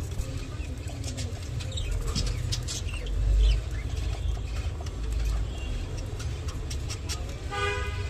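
Budgerigars chirping and chattering in short high notes while they feed, over a low steady rumble. Near the end comes a short pitched clucking call.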